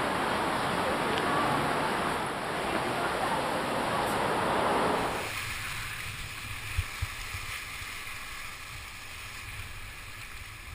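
Whitewater river rapids rushing in a steady hiss. About five seconds in, the sound changes abruptly and becomes much quieter, with a couple of low knocks.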